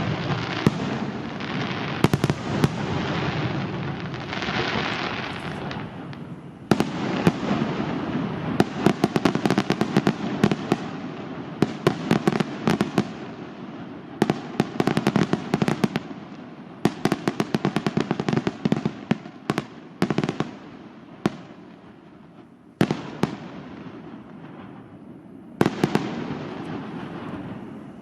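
Aerial fireworks display: shells bursting with sharp bangs over a dense crackle, coming in rapid flurries with a brief lull a few seconds before the end.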